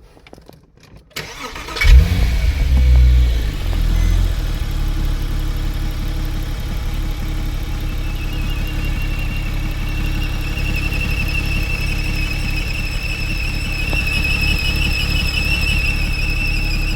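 Porsche Boxster 987 flat-six engine cranked and started with its drive belt removed, flaring briefly as it catches and then settling to a steady idle. From about eight seconds in a high-pitched whine comes in over the idle and holds: the noise being chased, still present with the belt off, so not from a pulley or belt-driven accessory; the mechanic suspects the intake suction or the gearbox release bearing.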